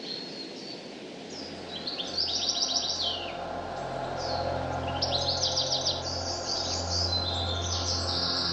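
Songbirds chirping, with bursts of fast trills about two seconds in and again near the middle, over a steady low hum.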